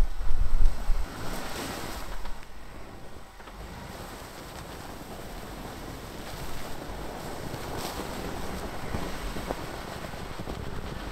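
Wind buffeting the microphone, with heavy low gusts for about the first second, then a softer, steady rush of wind noise.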